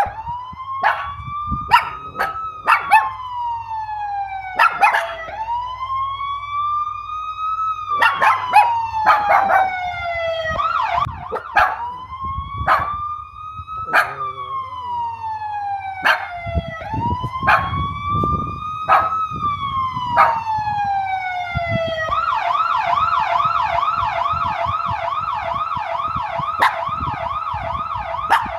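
Police siren wailing, rising and falling slowly about every five seconds, then switching about 22 seconds in to a fast yelp. Small Maltese dogs bark in sharp, excited yips over it, mostly during the slow wail.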